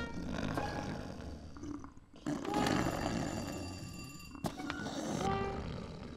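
Cartoon polar bear vocalizing with his mouth wide open: two long, rough, roar-like sounds, the second starting about two seconds in, followed by a couple of sharp clicks.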